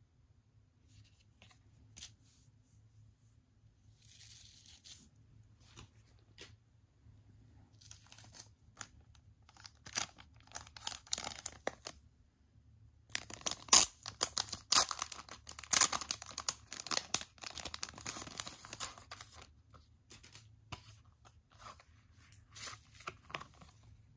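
Clear plastic packaging sleeve crackling and rustling as it is opened by hand and a card-backed acrylic magnet set is slid out. Scattered soft handling rustles come first, then a dense stretch of crackling just past halfway that thins out near the end.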